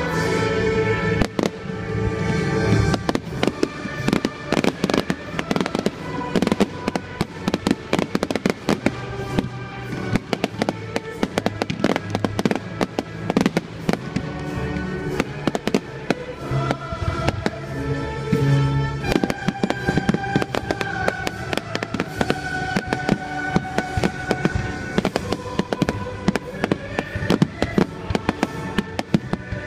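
Fireworks display: rapid, repeated bangs and crackles from exploding shells, over music played through loudspeakers.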